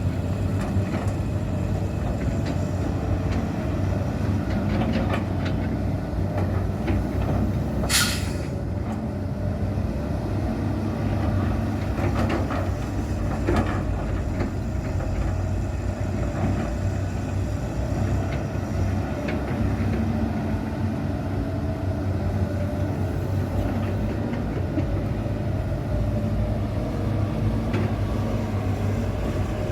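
Heavy diesel machinery, a Hitachi ZX200-5G excavator working beside an idling ten-wheel dump truck, running steadily with a low hum. A short sharp hiss or clang about eight seconds in, and a few knocks a few seconds later.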